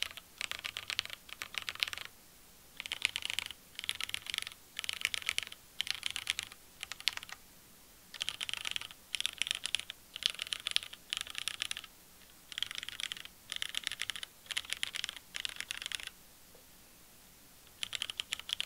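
Typing on a custom Lin Triple A tenkeyless keyboard with lubed and filmed Cherry MX Black linear switches in an aluminium plate with foam, capped with GMK Shoko ABS keycaps. Quick runs of keystrokes in bursts of a second or two with brief pauses, and longer breaks about a third of the way in and near the end.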